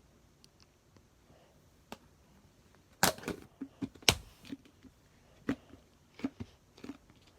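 Slime being played with close to the microphone: a series of short sticky pops and clicks, two louder ones about three and four seconds in, then softer pops every half second or so.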